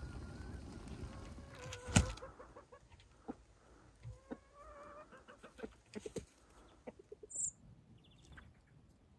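Domestic chickens clucking, with short pitched hen calls and scattered light ticks. It opens with a low rumble of fire flaring, cut by one sharp crack about two seconds in, and a brief high bird chirp comes near the end.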